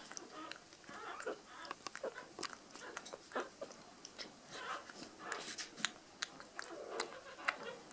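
Newborn puppy suckling from a feeding bottle's rubber teat: irregular wet sucking clicks and smacks.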